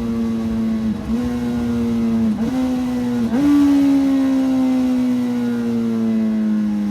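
Suzuki Hayabusa inline-four running through a Brocks aftermarket exhaust while slowing down. The engine note falls steadily, with three quick downshifts about one, two and a half and three and a half seconds in that each step the pitch up, then a long smooth fall in pitch as the bike decelerates.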